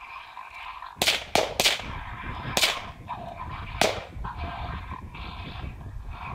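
Five sharp gunshot cracks: three in quick succession about a second in, then single shots near three and four seconds, fired at a raccoon in a hollow cottonwood. Under them an electronic predator caller plays wavering raccoon cries.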